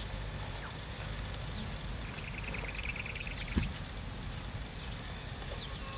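Outdoor ambience: a low steady rumble with scattered bird chirps and a rapid trill from about two to three and a half seconds in. A single sharp knock comes about three and a half seconds in.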